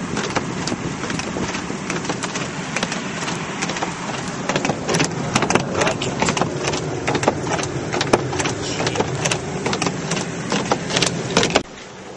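Cabin noise of a vehicle driving on a snow- and ice-covered road: a steady low rumble with frequent sharp crackles. It cuts off suddenly near the end.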